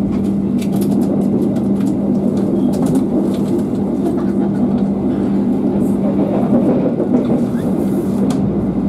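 Passenger train running slowly through a station, heard from inside the coach: a steady rumble with a constant hum and scattered clicks and clunks from the wheels on the track.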